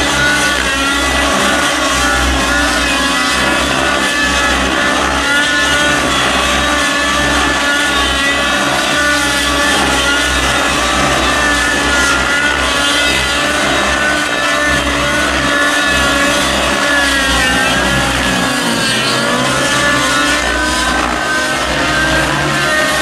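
Two radio-controlled 3D aerobatic helicopters flying together, their motors and rotors whining, the pitch rising and falling as they manoeuvre.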